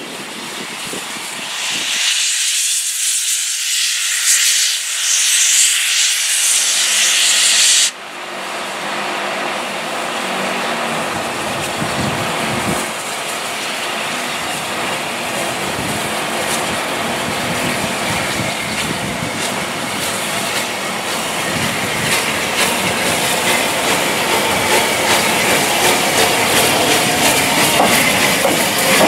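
Bulleid Light Pacific steam locomotive letting off a loud hiss of steam for several seconds, which cuts off suddenly about eight seconds in. The train's running noise follows, with wheels rumbling on the rails and growing slowly louder.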